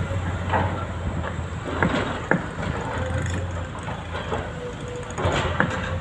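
Diesel engines of heavy construction machinery, an excavator and dump trucks, running steadily, with scattered sharp knocks and clanks from the work.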